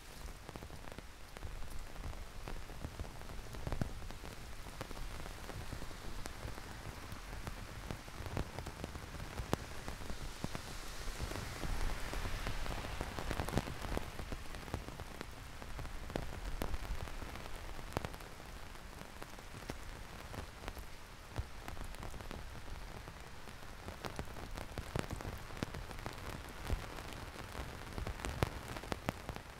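Heavy rain falling, a steady hiss with many separate drops ticking close by. A broader hiss swells and fades around the middle.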